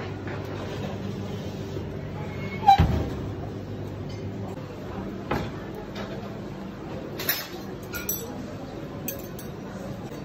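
Kitchen handling noises as a heavy clay serving pan of seafood is brought from the oven to the worktop. There is one sharp knock about a quarter of the way in, then a few lighter knocks and clinks, all over a steady low hum.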